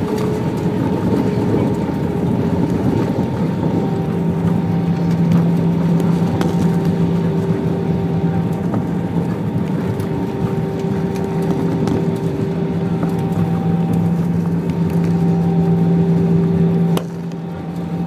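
Airbus A320 engines and rolling noise heard from inside the cabin as the airliner slows on the runway and taxis off after landing: a steady rumble with several steady hums, one dropping slightly in pitch at the start. The level drops abruptly with a click near the end.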